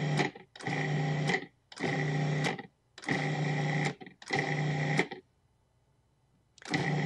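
Food processor motor pulsing in runs of about a second each, six in a row, as shortening is cut into the flour mixture. It stops for about a second and a half, then starts pulsing again near the end.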